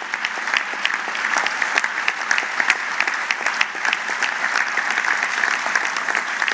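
Audience applause: many people clapping steadily in a large hall.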